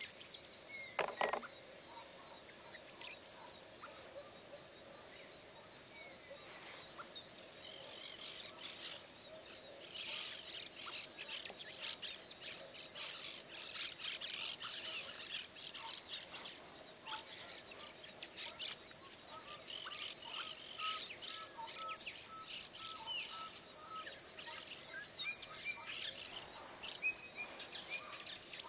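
Wild birds calling and chirping in a wetland: a busy mix of quick, high, overlapping notes that grows denser about a third of the way in. A short, louder sound comes about a second in.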